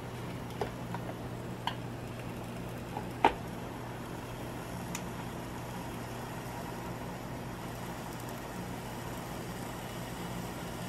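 Steady low electrical hum of kitchen appliances, with a few light clicks and one sharper knock about three seconds in.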